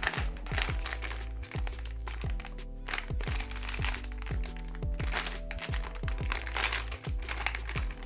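Foil blind-box bag crinkling and tearing as it is handled and opened by hand, in several bouts, over background music with a steady beat.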